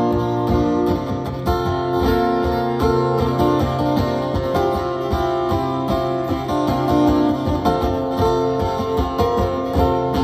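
Solo acoustic guitar playing an instrumental break of picked and strummed chords in a steady rhythm between sung verses of a folk song.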